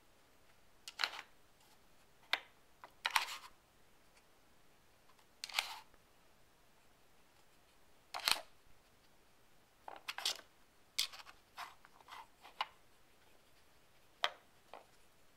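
Sliding blocks of a wooden Nina Ottosson Dog Brick puzzle board clacking and knocking as a dog nudges and paws them in search of treats: about a dozen short, irregular clacks, some in quick pairs.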